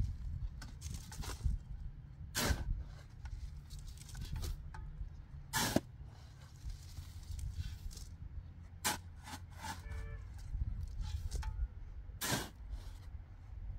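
Sharp knocks every few seconds over a steady low rumble, with a brief pitched call about ten seconds in.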